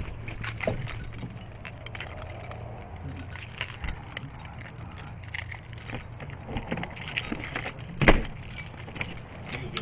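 Irregular light clicks and rattles, jangling like keys, over a steady low hum, with one loud thump about eight seconds in.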